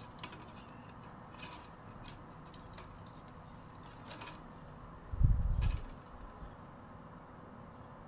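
Thin bamboo weaving strips clicking and rustling lightly as they are threaded over and under by hand, with one dull low thump a little past halfway.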